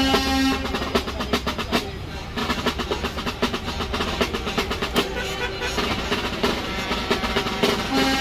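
Music led by drums: rapid snare-drum strokes and rolls. Held tones fade out about half a second in and come back near the end.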